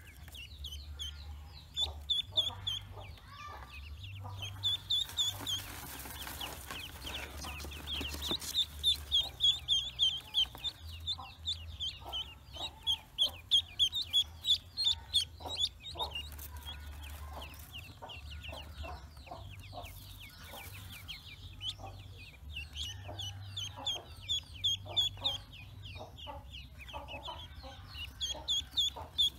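Newly hatched ducklings peeping: many short, high-pitched chirps in quick runs, loudest about a third to halfway through and again near the end, with fainter lower calls mixed in.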